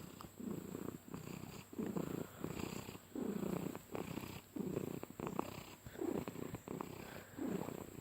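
Domestic cat purring while being petted, the purr swelling with each breath in and out, about one swell every second and a bit. The purr is loud, like a monster truck's motor.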